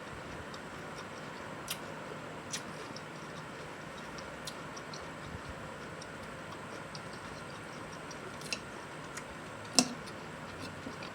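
Eating sounds close to the microphone: a handful of sharp, separate clicks of mouth, teeth or utensil, the loudest a little before the end, over a steady background hiss.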